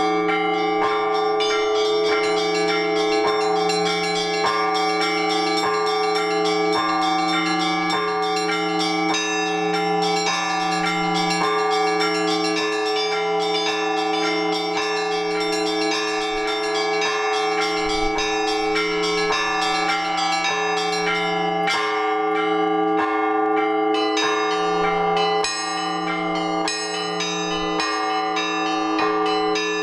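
Orthodox church bells ringing in a peal: deep bells hum steadily underneath while small bells strike in a fast, dense rhythm above them.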